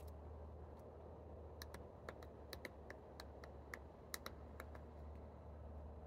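Woodpecker pecking at the bark of a conifer trunk: about a dozen sharp, irregularly spaced taps over some three seconds, starting about a second and a half in, over a low steady hum.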